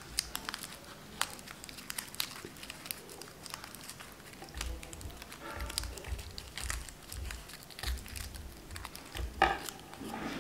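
Thin craft paper crinkling and crackling in irregular small bursts as a strip of it is rolled tightly between the fingers into a paper-flower centre. Some soft low bumps from handling come in the middle.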